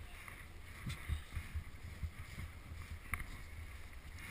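Wind buffeting the microphone as an uneven low rumble, with a couple of faint, sharp clicks about a second in and again about three seconds in.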